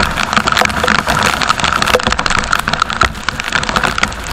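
Heavy rain hitting in many sharp taps over a steady rush of noise, with the engine of a scooter being ridden through the downpour on a wet road.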